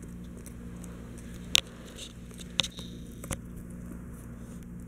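Chihuahua chewing on a hard bone-shaped chew: sharp clicks of teeth on the bone, three loud ones about a second apart starting a second and a half in, with fainter gnawing ticks between.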